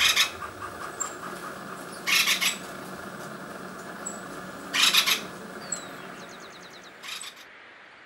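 Acorn woodpecker calling: harsh, grating calls in short runs of two or three notes, coming about every two to three seconds. Faint high thin notes and a brief trill from other small birds sound between the calls.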